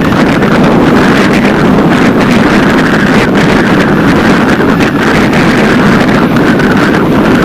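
Loud, steady wind rush buffeting the microphone of a camera riding along on a moving bicycle.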